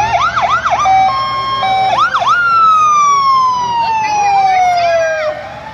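Fire truck sirens sounding loudly. Rapid yelping whoops and short steady tones come first, then a long wail falls steadily in pitch over about three seconds, and a new rising whoop starts near the end.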